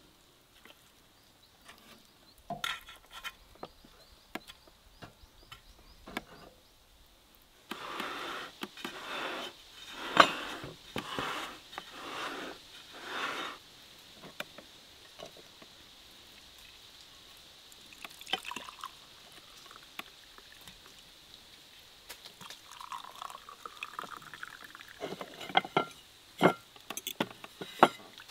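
Scattered clinks and taps of forks on plates, and a drink poured from a glass bottle into drinking glasses, the pour rising in pitch briefly near the end, followed by a few sharp clinks.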